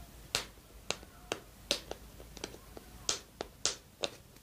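The little protective seal being peeled off a moisturising face mask's container: a string of sharp, irregular crackles and clicks, about a dozen in all.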